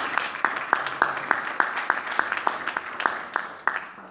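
Audience applauding, with individual claps standing out, dying away near the end.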